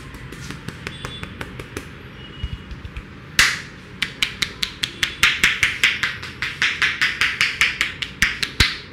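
A barber's hands slapping and tapping on the head in a head massage. Faint ticks at first, then from about three and a half seconds in a fast run of sharp slaps, about five a second.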